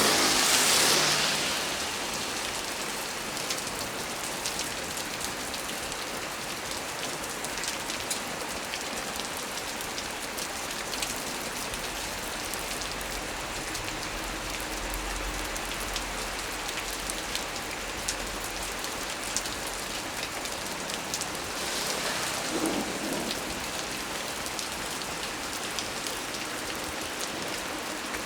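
Heavy rain falling steadily on tree leaves. It swells louder in the first two seconds and again about 22 seconds in, with a faint low rumble of distant thunder in the middle.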